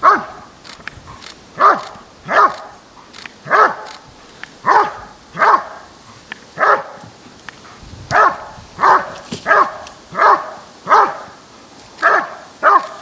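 German Shepherd dog barking at the helper in a long series of single sharp barks, a little more than one a second, while guarding him without biting the sleeve.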